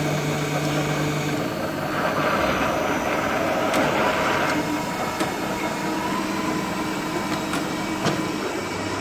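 Pillar drill press running, its bit drilling into a small metal part clamped in a vise. A steady machine hum changes pitch about 1.5 s in, turns rougher for a couple of seconds while the bit cuts, and carries a few sharp clicks.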